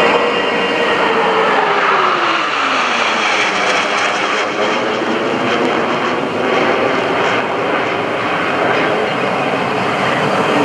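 Jet engine noise from US Navy Blue Angels F/A-18 Hornets flying past, loud and steady. Over the first three seconds or so the pitch falls as the jets go by.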